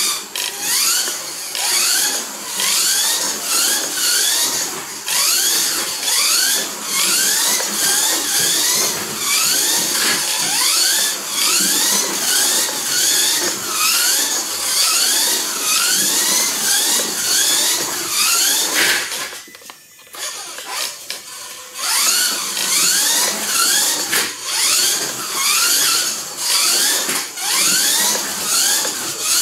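Kyosho Mini-Z Readyset radio-controlled car's electric motor and gears whining as it drives laps of a small track. The whine rises in pitch again and again, about once a second, as the car accelerates out of each corner, with a brief pause about two-thirds of the way through.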